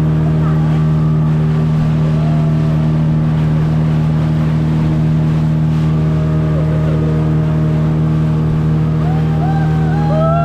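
An engine runs at a steady, unchanging speed throughout. A few short high-pitched calls rise over it, clearest near the end.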